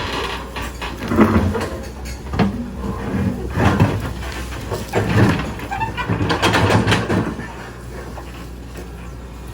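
Backhoe at work moving large rocks: a steady low diesel engine hum with irregular loud clanks and scrapes of the bucket and rocks, which die away about three-quarters of the way through and leave the engine running.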